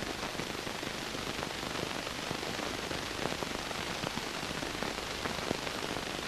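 Steady hiss with scattered faint crackles and pops, the surface noise of an old film soundtrack.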